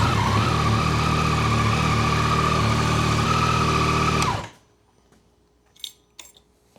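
Yamaha R9's 890 cc inline-three engine idling just after a start, its pitch settling in the first half second, then switched off abruptly a little over four seconds in. It is a short run on freshly refilled oil to check the level. A few faint clicks follow.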